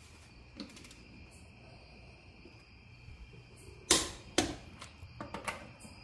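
Click-type torque wrench on a wheel's lug nuts: two sharp clicks about half a second apart about four seconds in, then a few lighter ticks. The clicks signal each nut reaching the set torque.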